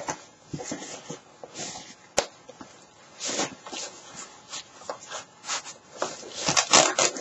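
Rustling and brushing of a foam armor thigh piece against a fabric undersuit as it is lined up and pressed onto its velcro strip. There is a sharp click a couple of seconds in, and the rustling grows louder near the end.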